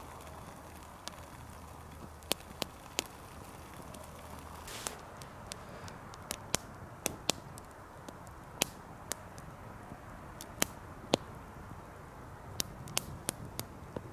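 Campfire crackling: irregular sharp pops and snaps from burning wood over a faint steady hiss.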